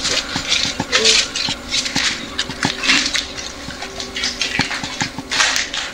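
Footsteps of several people scuffing and shuffling over a gritty concrete floor: irregular short scrapes with a few sharp clicks.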